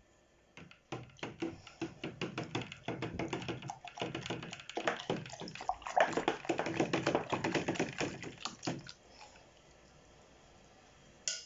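Water with washing-up liquid being stirred fast in a container, with rapid knocks and clicks of the stirrer against the sides and water swishing; the stirring stops about nine seconds in.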